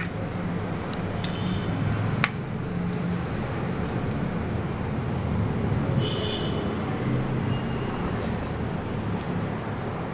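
Steady low background rumble and hiss, with a sharp click about two seconds in and a short high chirp about six seconds in.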